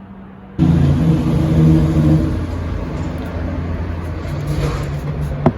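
A motor vehicle's engine running close by, loud and steady, starting abruptly about half a second in. One sharp click near the end.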